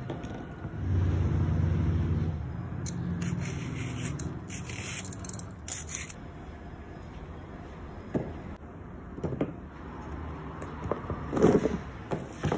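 A metal peeler scraping the skin off chunks of green plant stem in short rasping strokes, then a few dull knocks as peeled pieces go into a plastic tub, the loudest a little before the end. A low rumble in the first two seconds.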